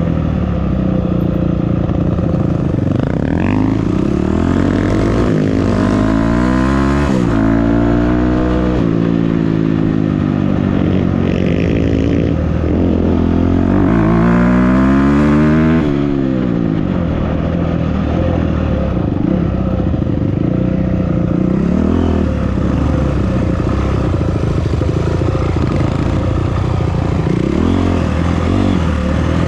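Off-road vehicle engine under way, its pitch climbing and dropping again and again as it is revved and shifted, with steadier running through the middle stretch.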